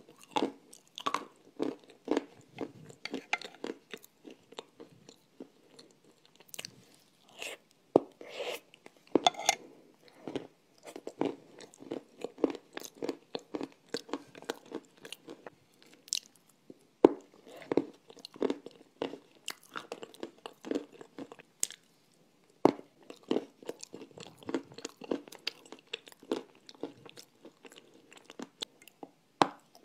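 A person biting and chewing crunchy, dry blocks of edible clay close to a clip-on microphone: irregular sharp crunches, several a second, with short pauses between bites.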